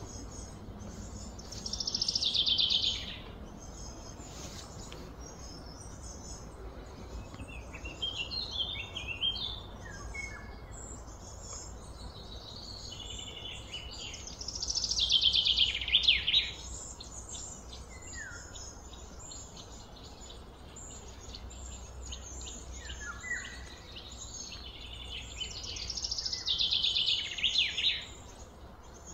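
Birdsong: a bird gives a loud, fast, descending trill three times, about twelve seconds apart, with shorter chirps in between, over a steady outdoor background hiss.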